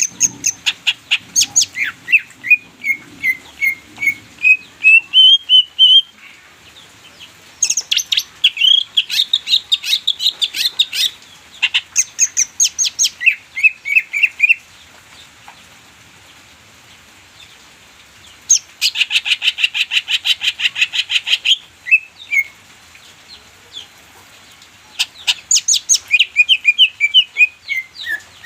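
Cucak ijo (green leafbird) singing: loud phrases of rapid, repeated chattering notes, some sweeping up or down. The phrases last a few seconds each, with short pauses between them, and the longest pause comes about halfway through.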